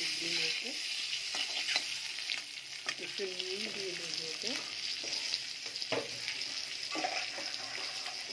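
Eggs frying in hot oil with turmeric, sizzling steadily, with short scrapes and taps of a utensil stirring them in the pan.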